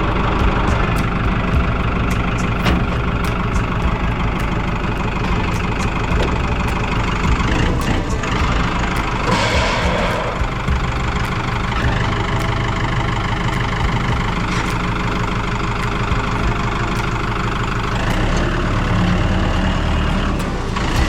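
A truck engine running steadily, with a brief rush of noise about halfway through.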